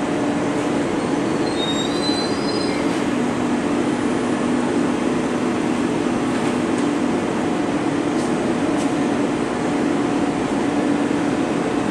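SBB RABDe 500 'ICN' electric train creeping slowly toward another ICN for coupling: steady running noise with an electric hum that dips lower for a few seconds in the middle, and a brief high wheel squeal about two seconds in.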